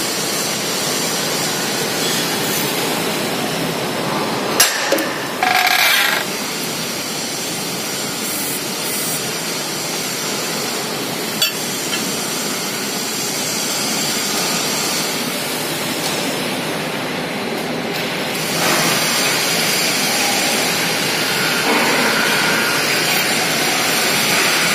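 Hydraulic punching machine running with a steady noise, with a few sharp bangs as the punch strikes the steel plate, the sharpest about four and a half and eleven seconds in.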